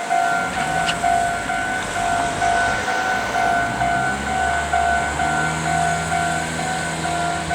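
Japanese level-crossing warning bell ringing in a steady repeating two-tone ding. About halfway in, the low rumble and motor hum of a Meitetsu 3100-series electric train join it.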